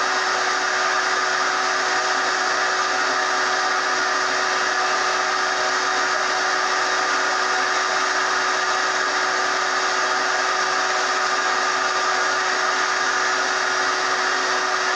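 Craftsman 12-gallon, 6-horsepower wet/dry shop vacuum running steadily: an even rush of air with a constant hum in it, never changing in pitch or level.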